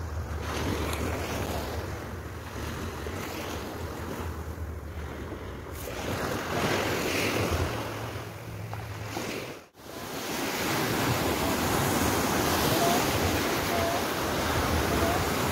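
Sea waves washing in the shallows, with wind buffeting the microphone. A brief dropout about ten seconds in, after which the surf is louder as foam washes in close.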